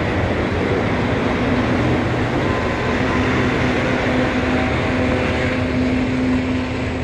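Freight train passing close by: the last ALCO diesel locomotive works past, then loaded coal hopper cars roll by on the rails with a steady rumble. A faint low hum runs under it from about a second and a half in.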